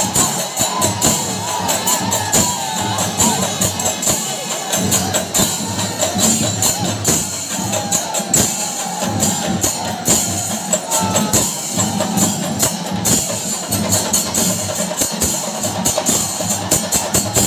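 Chenda melam at its kalashakottu climax: many chenda drums beaten in a fast, dense rhythm with ilathalam hand cymbals clashing continuously, and a crowd's voices underneath.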